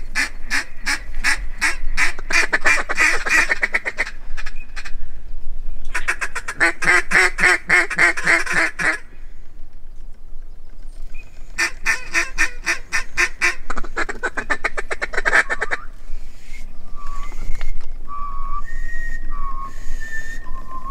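Mallard-type duck quacking in three quick runs of many evenly spaced quacks, followed near the end by a few short, high whistled peeps.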